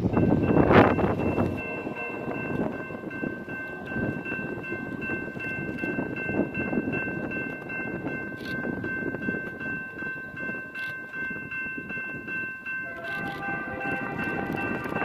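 Freight train noise rushing loudly for the first second or so, then a diesel locomotive's multi-chime air horn sounding a long, steady chord from a distance. About 13 seconds in it changes to a different, lower chord.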